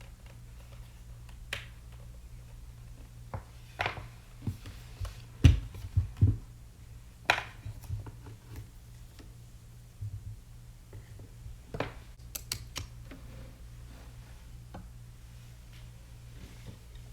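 Irregular clicks, taps and a few heavier knocks from hands handling a mechanical keyboard and its packaging, with the loudest knocks in the middle, over a steady low hum.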